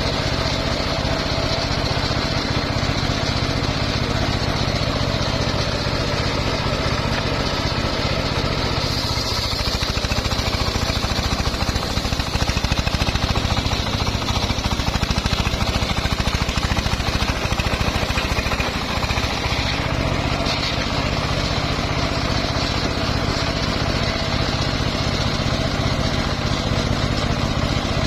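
Engine-driven homemade circular sawmill running steadily while sawing a mahogany log, growing louder and higher-pitched for several seconds in the middle.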